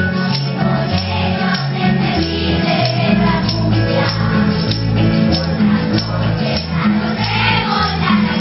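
Children's tuna performing live: a chorus of young voices singing over a bass line that steps from note to note, with a tambourine shaken and struck in steady rhythm.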